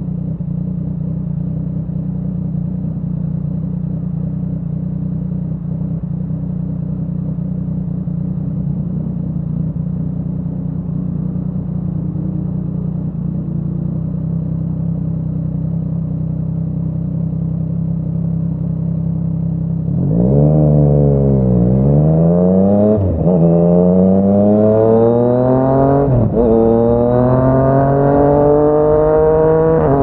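Yamaha MT-09 inline-three engine through a Yoshimura R55 slip-on exhaust, running at a steady engine speed, then opening up and getting much louder about two-thirds of the way in. The pitch climbs hard, drops briefly at each of two gear changes and climbs again as the bike accelerates through the gears.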